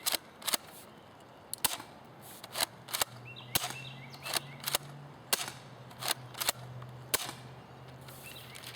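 UTG M183A2 pump-action airsoft shotgun being racked and fired over and over: about a dozen sharp clacks, some in close pairs, as the pump is worked and shots are let off. A faint low steady hum sits underneath from about three seconds in.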